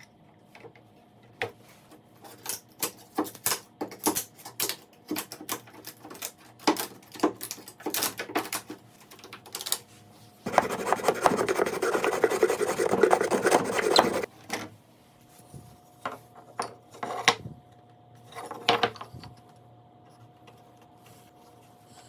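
Wood being worked by hand: a run of short scraping strokes, then about four seconds of steady rubbing on wood, then a few more separate strokes.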